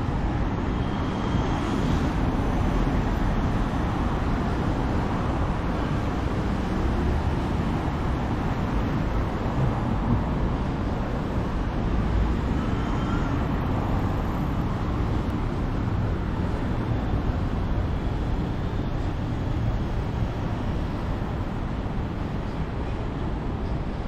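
Steady city street noise: road traffic running past in a continuous low rumble.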